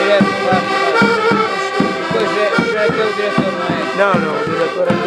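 Portuguese diatonic button accordions (concertinas) playing a lively folk tune in sustained chords, with a bass drum keeping a steady beat.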